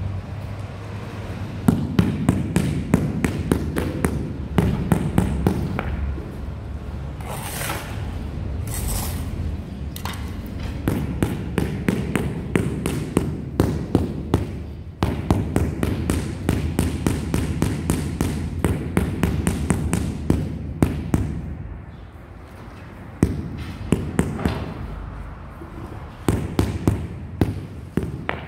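Rubber mallet tapping a large ceramic floor tile over and over to bed it into the wet mortar, a quick run of dull knocks several times a second, easing off briefly about three-quarters of the way through.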